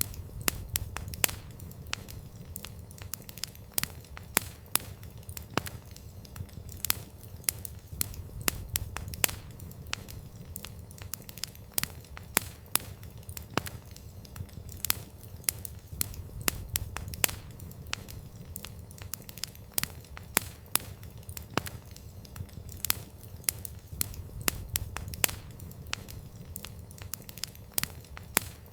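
Wood fire crackling: irregular sharp snaps and pops, several a second, over a low steady rumble of the flames.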